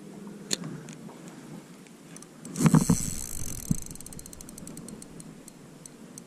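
Spinning reel being cranked, its gears giving a fast, even ticking that thins out toward the end. A sharp click comes about half a second in, and a louder knock with rustling just before the ticking starts.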